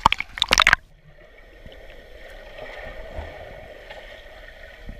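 Water splashing loudly at the pool surface for under a second, then a muffled, steady underwater wash heard from the camera below the surface.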